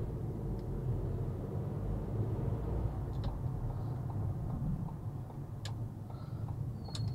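Car cabin noise while driving slowly: a steady low engine and tyre rumble, with a few light clicks.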